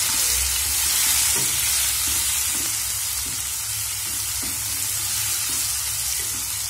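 Chopped tomatoes and green chillies frying with onions in hot oil in a non-stick kadhai, sizzling steadily while a slotted spatula stirs and scrapes them around the pan in repeated short strokes: the tomato-chilli masala for a dal tadka cooking down.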